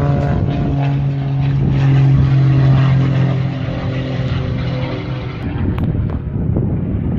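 An aircraft flying past, its engine drone falling slowly in pitch and fading into a low rumble about five seconds in.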